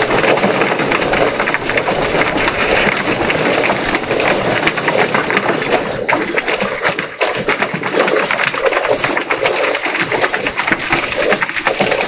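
Drum-style chicken feather plucker running, its spinning rubber-finger plate tumbling a scalded Cornish broiler, while a hose nozzle sprays water into the drum. A steady rush of spray and machine noise carries many quick, irregular knocks, thickest in the second half.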